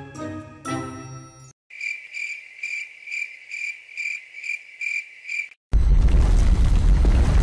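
Light mallet-percussion background music stops about a second and a half in, giving way to a cricket-chirping sound effect: a steady high chirp repeating about two and a half times a second for about four seconds. Near the end it cuts to a sudden, much louder, noisy, bass-heavy blast.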